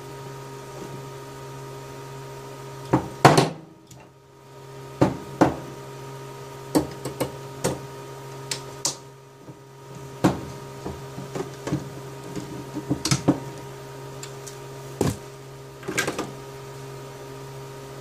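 Irregular knocks and clicks of a 25-pair telephone cable and its metal-hooded RJ21 connector being handled, coiled and laid on a wooden desk, the loudest knock about three seconds in. A steady electrical hum runs underneath.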